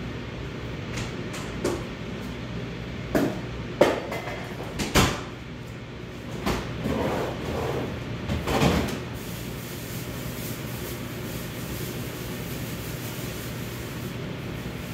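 Kitchen knocks and clatters off-camera, like cupboard doors and drawers being opened and shut, with some rustling, over a steady background hum. The knocks stop after about nine seconds, leaving only the hum.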